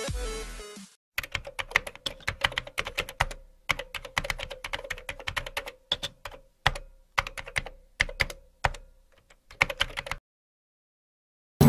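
Computer keyboard typing sound effect: irregular runs of key clicks with short pauses between them. Electronic music fades out in the first second, and the typing stops about a second and a half before the end.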